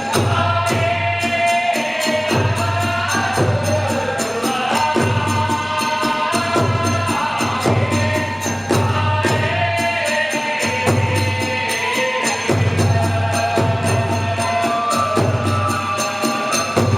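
Kagura festival music: a big drum beating in pulses under rapidly clashing small hand cymbals, with a sustained, sliding melody line above.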